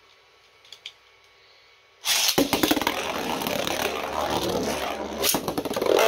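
A few faint clicks, then about two seconds in a sudden loud start as 3D-printed Beyblade spinning tops are launched into the stadium: a continuous scraping whirr of the tops spinning, with sharp clacks as they strike each other and the stadium wall.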